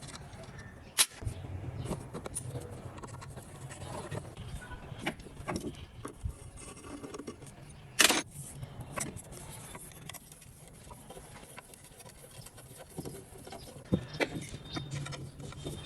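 Scattered metal clinks and knocks of tools and parts being handled while an electric wire-rope winch is worked on, with a sharp knock about a second in and another about eight seconds in.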